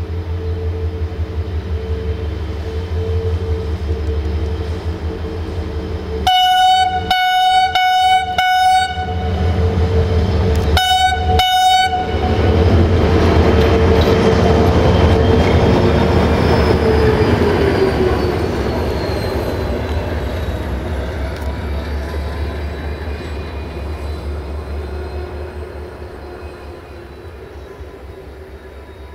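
Diesel train's horn giving a quick run of short toots about six seconds in and two more a few seconds later, over a steady diesel engine drone. The engine then swells as the train passes, its pitch dropping, and fades away.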